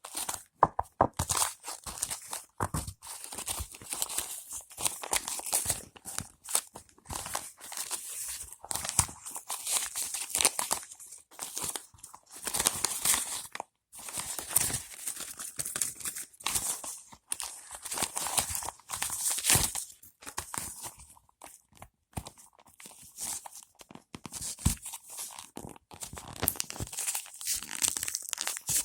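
Packaging being torn open and crumpled by hand: irregular runs of tearing and crinkling with short crackles, on and off throughout.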